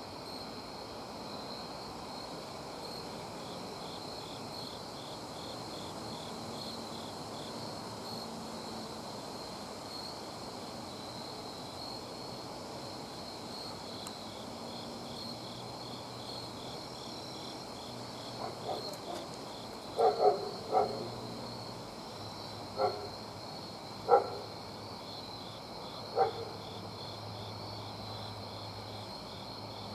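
Night chorus of crickets and other insects: a steady high trill with a pulsing chirp beneath it. About two-thirds of the way through, a handful of short, louder low calls sound over it.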